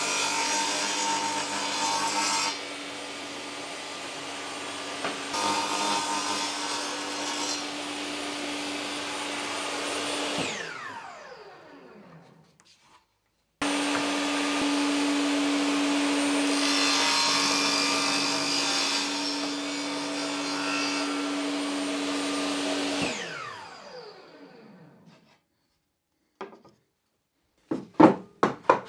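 Bosch table saw running and ripping wooden boards, a steady motor hum under the cutting noise. About ten seconds in the saw is switched off and winds down with a falling pitch; it runs and cuts again and winds down a second time. A few sharp wooden knocks near the end.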